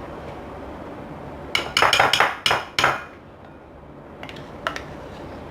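Spoon knocking and scraping against a mixing bowl, a quick run of about six clinks, while cream cheese is scooped into powdered sugar; a few lighter taps follow near the end.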